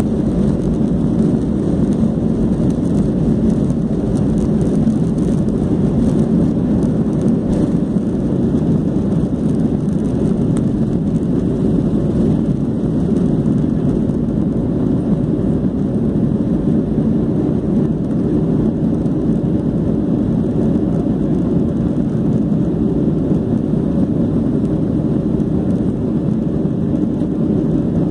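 Jet airliner's engines at takeoff thrust heard from inside the passenger cabin: a steady, loud, deep rumble through the end of the takeoff roll, liftoff and initial climb.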